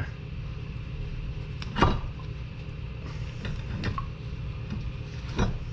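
A few small knocks and clicks from a new rubber slide-pin boot being handled and pressed into a brake caliper bracket, the loudest about two seconds in, over a steady low hum.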